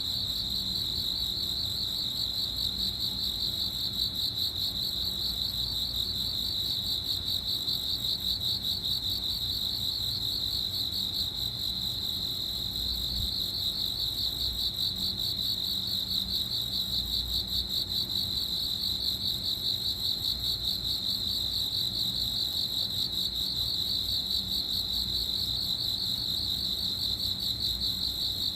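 Cricket chirping without pause: a steady, high-pitched, rapidly pulsing trill.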